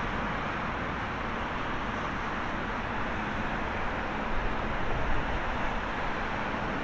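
Boeing 777-300ER's GE90 jet engines running at taxi idle: a steady jet rush with a low rumble underneath, and a few brief louder bumps a little past the middle.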